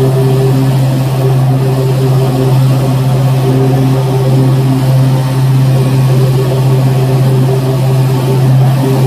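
Exmark 48-inch Turf Tracer walk-behind mower running while mowing grass: a loud, steady engine drone with a strong low hum that holds even throughout.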